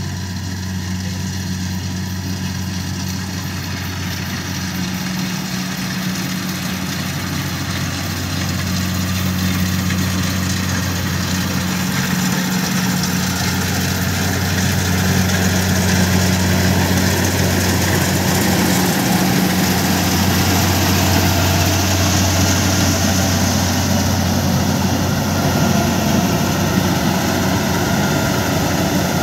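Kubota DC68 combine harvester's 68 hp diesel engine running steadily with a deep hum while it cuts rice, growing louder as the machine comes closer.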